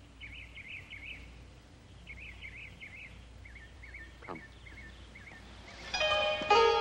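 Birds chirping and warbling in short repeated phrases over a faint background hiss. About six seconds in, plucked-string music begins.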